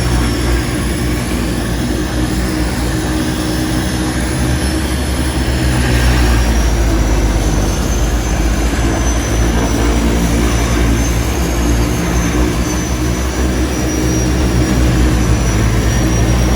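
Seaplane's propeller engines running steadily in flight: a low, even drone with a thin high whine wavering slightly above it, growing a little louder about six seconds in.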